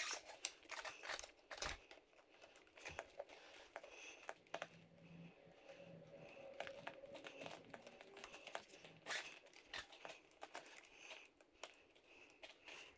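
Faint, scattered clicks and light rustling of small metal and plastic parts and hand tools being handled during work on an RC truck's steering assembly.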